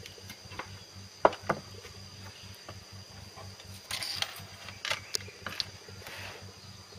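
Light metal clinks and taps of silver jewelry and small tools being handled on a stone workbench: two sharp clinks about a second in, a cluster of taps around four seconds, then a few single taps. A steady faint high-pitched hum runs underneath.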